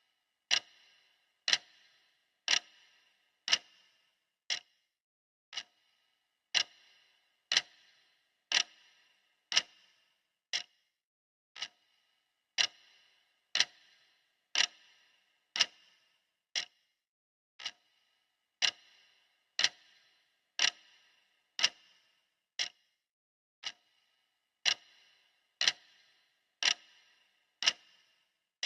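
Clock ticking steadily, one sharp tick a second, each tick with a short ring after it.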